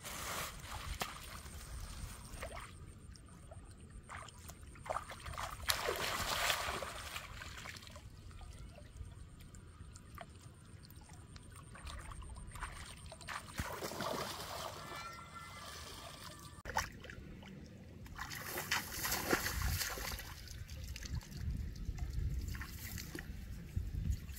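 Shallow muddy water splashing and sloshing as bare feet wade through a flooded rice-paddy pool and a plastic basket is dipped in it, in several separate bursts.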